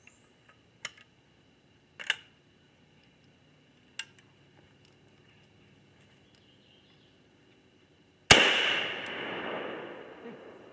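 A single shot from a 20-gauge single-shot shotgun about eight seconds in, its report rolling away in a long echo over about two seconds. A few faint clicks come before it.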